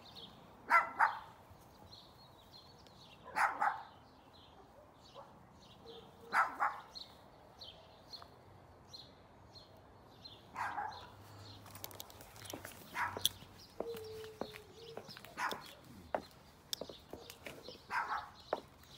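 A dog barking, about seven single barks spaced two to three seconds apart, with a bird chirping steadily and repeatedly in the background.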